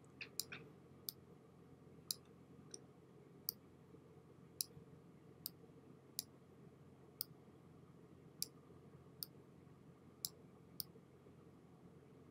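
Computer mouse clicking: a dozen or so single sharp clicks, roughly one a second, over faint room hiss, stopping about a second before the end.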